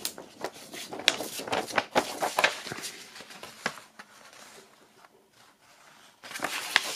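Vinyl LP being handled and slid into its paper inner sleeve: paper rustling and scraping with short sharp brushes, quieter for about two seconds before the rustling picks up again near the end.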